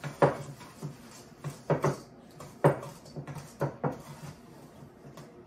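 A spoon knocking and scraping against a stainless steel mixing bowl as cookie dough is stirred until stiff: a series of irregular knocks, several close together in the middle.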